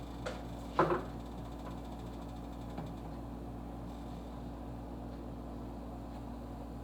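Steady mechanical hum of a kitchen appliance or fan, with a few light knocks of handled kitchenware from adding seasoning. The loudest knock comes about a second in.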